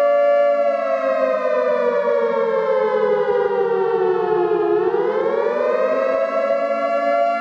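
Civil defense siren wailing: its chord of tones holds steady, slides slowly down in pitch for about four seconds, then rises back up and holds.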